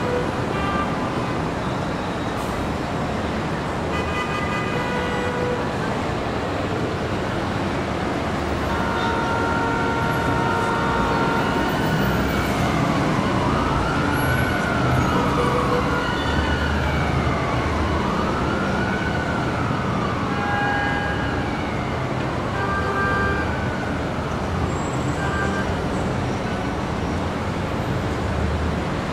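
Emergency vehicle siren wailing, its pitch rising and falling about every two and a half seconds, over steady city traffic noise. The wail comes in about a third of the way through.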